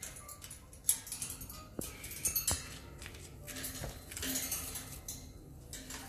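Faint scattered clicks and taps from parrots moving about their wire cage, with a few soft short tones between them.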